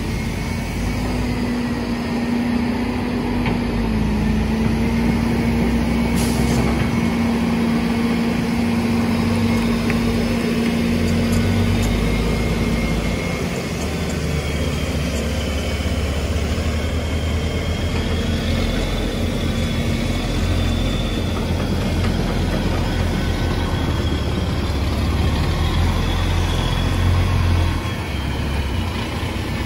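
Heavy diesel engines of a hydraulic excavator and a dump truck running steadily while sand is loaded, with a faint high whine that rises and falls.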